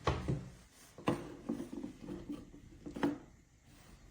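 Handling sounds from a handheld laser distance meter being moved and set on a surface: three short knocks with soft rubbing between them.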